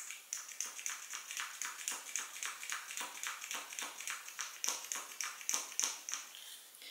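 A small liquid foundation bottle being tapped and shaken to coax out product that won't come through the neck: a run of light, quick clicks and taps, a few a second, stopping near the end.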